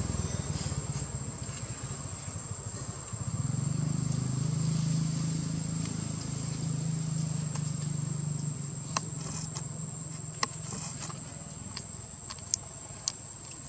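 Outdoor ambience with a steady high-pitched insect trill, a low hum that swells in for a few seconds and then fades, and a few sharp clicks in the second half.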